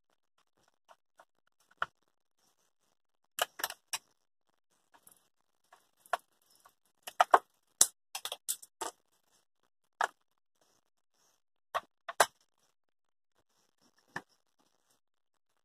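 Scattered sharp clicks and knocks of a plastic Philips steam iron housing being handled and worked on with a screwdriver while a small screw is taken out, heaviest a few times near the middle.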